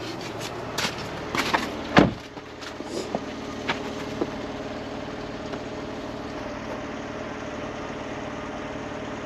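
A few clicks and knocks, then a solid shut like a car door about two seconds in. After that the 2019 Jeep Cherokee's engine idles steadily.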